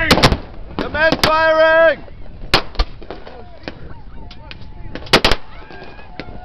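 Blank gunfire in a staged sea battle: about seven sharp bangs, several in quick pairs, with a pitched call held for about a second near the start.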